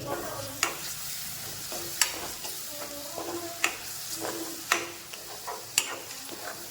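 Eggs sizzling with tomato, onion and garlic in a kadhai as they are stirred into bhurji, a steady frying hiss. A spatula knocks sharply against the pan five times, each knock ringing briefly.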